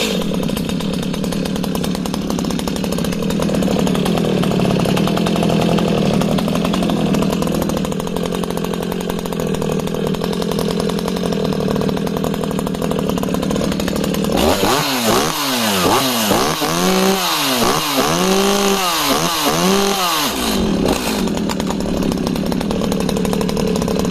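Echo CS-5100 two-stroke chainsaw (nominal 49 cc) idling steadily, then revved up and down in a quick series of about six throttle blips, each rising and falling at once, before dropping back to idle. This shows its sharp throttle response: instant up, instant down.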